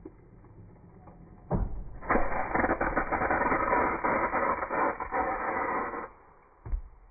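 A broken espresso filter basket bursts under brewing pressure in a Meticulous Home espresso machine: a sudden bang, then about four seconds of loud spraying hiss of water and coffee blowing out, cutting off abruptly. A single thump follows near the end.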